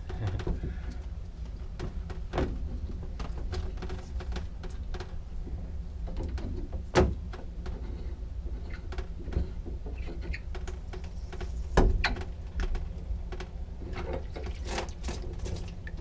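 Shower faucet stem being unscrewed from the valve body with an adjustable wrench and then by hand: scattered light metal clicks and taps, with two louder knocks, about seven and twelve seconds in, over a low steady hum.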